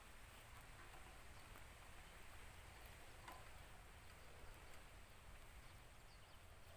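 Near silence: a faint steady background hiss with one faint click about three seconds in.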